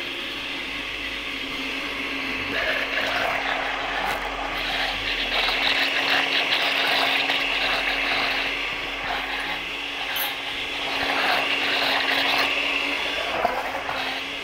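Countertop blender running steadily while it blends a creamy chili-and-cheese sauce, its motor giving a constant hum under a whirring rush. There is a short click near the end.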